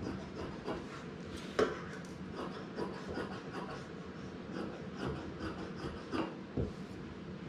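Fabric shears snipping through fusible interfacing on a wooden table: an uneven run of short cutting strokes, several a second, with the blades rubbing as they close. Two snips stand out, about a second and a half in and about six seconds in, followed shortly by a soft thump.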